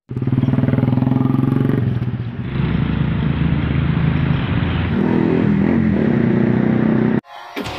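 Motorcycles and other road traffic passing close by, engines running steadily. The engine note changes abruptly twice and cuts off just after seven seconds in.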